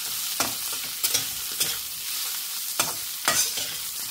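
Sliced spiny gourd (kantola) frying in a kadai, sizzling steadily as it browns over high heat, while a metal spatula scrapes through it against the pan in several irregular stirring strokes.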